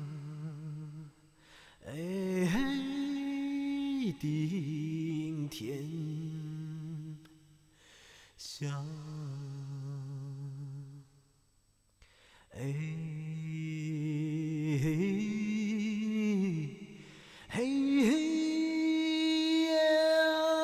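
A voice humming a slow, wordless melody in long held notes that waver slightly, with short pauses between phrases; the notes climb higher in the last few seconds.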